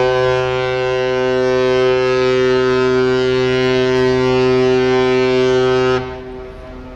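The MSC Orchestra's ship horn sounds one long, steady, deep blast of about six seconds as the cruise ship departs. It cuts off sharply, with a short echo trailing after.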